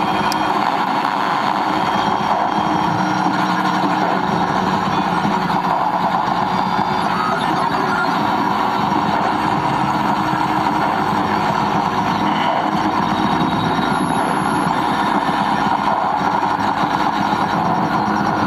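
Live electroacoustic noise music played from a laptop and controllers: a steady, dense wall of electronic noise with faint held tones inside it, keeping much the same loudness throughout.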